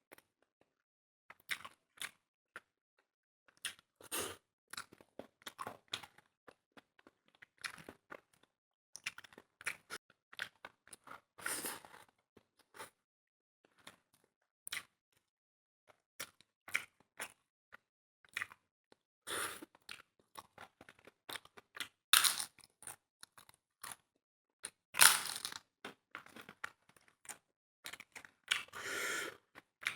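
Close-miked eating sounds: irregular wet chewing and crunching of food in the mouth, with a few longer, louder crunches in the second half.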